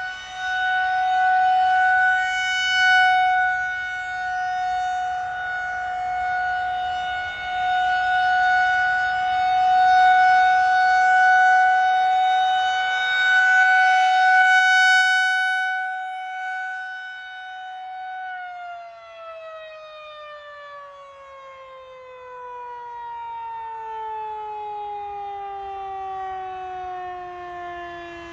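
Federal Signal Model 2001 outdoor warning siren sounding its steady test tone, getting louder and quieter every few seconds as the rotating horn sweeps around. About eighteen seconds in it shuts off and winds down, its pitch falling slowly.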